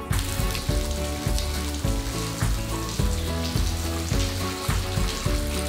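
Steady hiss of water running into a freestanding bathtub from its floor-mounted filler, over background music with a regular beat.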